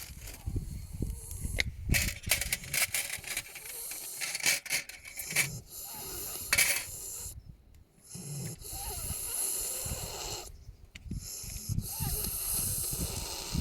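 Miniature donkey snoring in its sleep: long, wheezy, hissing breaths with short pauses between them.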